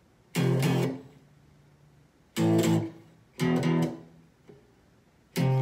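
Electric guitar on a clean tone with no distortion, playing two-note power chords of a riff. Three short chords are struck and cut off quickly, about a second or two apart, and a fourth starts near the end.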